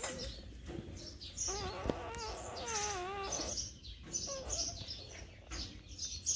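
Newborn puppies whining while they nurse: one long wavering whine about two to three seconds in, with shorter squeaks and whimpers around it.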